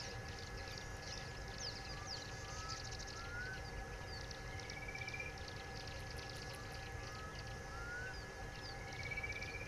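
Wild birds calling at an African waterhole: repeated short rising whistles, high quick chirps, and a rising trill about five seconds in and again near the end. Under them run a steady low rumble and a faint, constant high tone.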